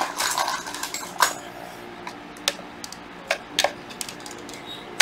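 Hard plastic clicks and knocks from a Ryobi BBL-140 14.4 V cordless blower being handled, its stiff speed control being pulled at: a cluster of clicks at the start, then single sharp clicks spaced a second or so apart. The control is sticking and needs cleaning.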